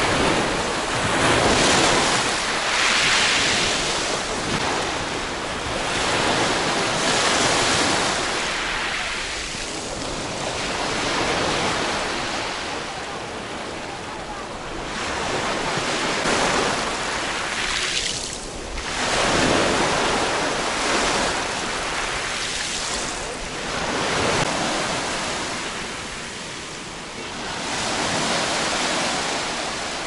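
Small sea waves breaking and washing up over a fine-pebble beach at the water's edge, the surf swelling and fading every few seconds.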